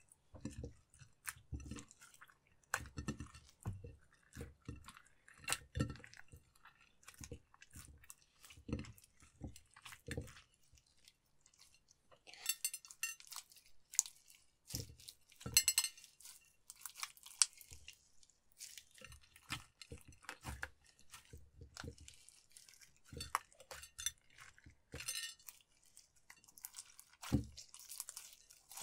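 Hands kneading and squeezing clear slime with mixed-in eyeshadow and sequins: irregular wet squishes and crackles, with occasional clinks against the glass dish.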